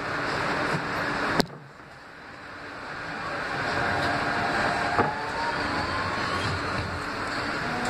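R160B subway car with Siemens propulsion running through a tunnel: steady wheel and track noise, a sharp click about a second and a half in, after which the noise drops away abruptly. The noise then builds back up and the Siemens traction motors' whine comes in as several tones rising slowly in pitch as the train picks up speed.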